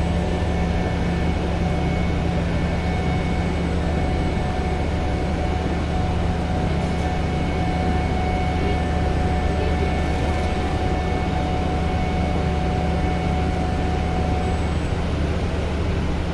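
Docked car ferry's diesel engines running, a steady low drone with a faint higher whine over it.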